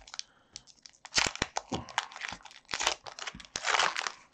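Foil booster-pack wrapper being torn open and crinkled by hand: irregular crackling bursts, the loudest just before the end.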